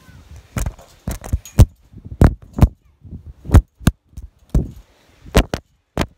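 Irregular series of sharp thumps and knocks on a phone's microphone as the phone is swung about, about a dozen in all.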